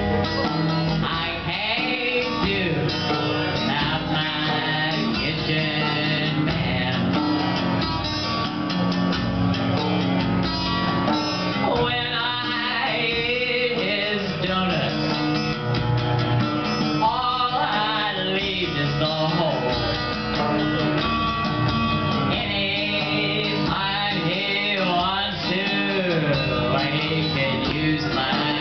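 Live acoustic jazz-blues song: acoustic guitar strumming and a hand drum keeping a steady beat. A woman's lead vocal comes in with bending, wavering lines, mostly in the second half.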